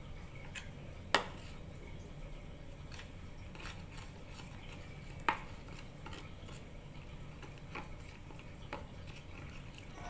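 Metal spoon stirring flour and water into a batter in a plastic bowl, with scattered light clicks and knocks of the spoon against the bowl; the two sharpest knocks come about a second in and about five seconds in.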